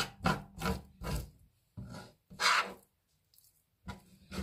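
Raw mullet flesh being scraped off the fish with a utensil: a run of short rasping scrape strokes, several quick ones in the first second, then a few slower ones, the loudest about two and a half seconds in.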